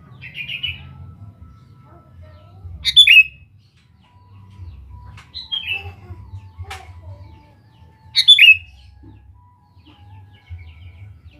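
Sooty-headed bulbul (kutilang) calling in short, bright phrases. The loudest phrases come about three and eight seconds in, with softer ones between them.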